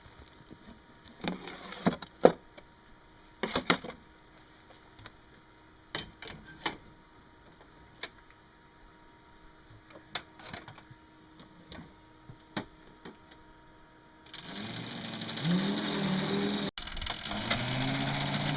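Scattered light clicks and knocks, then about fourteen seconds in a bulldozer engine comes in loud and runs, its pitch rising and falling as the machine works.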